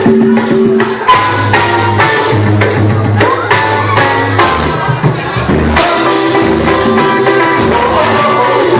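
Live pagode (samba) band playing, with tambourine-like percussion keeping a steady beat under pitched instruments and singing.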